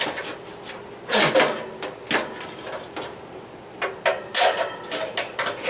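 Clattering knocks and clicks as a grille is fitted onto the back of a GE T-2 twin window fan, loudest about a second in and again around four seconds in.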